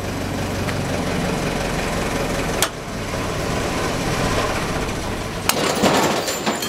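Truck crane's engine and hydraulics running steadily as the boom pulls on a Spit FIX Z stainless wedge anchor set in rock. There is a sharp crack about two and a half seconds in. A louder snap about five and a half seconds in marks the anchor bolt failing and pulling free, followed by a brief clatter of the released sling and hardware.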